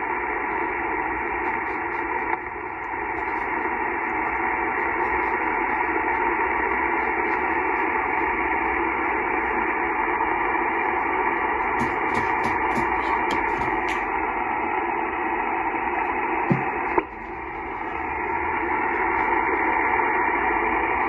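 Steady hiss of HF single-sideband band noise from a Yaesu FT-891 transceiver's receiver, narrow-band and cut off above about 3 kHz. The noise dips briefly about two seconds in and again near the end, each time swelling back up, with a few faint clicks in the middle.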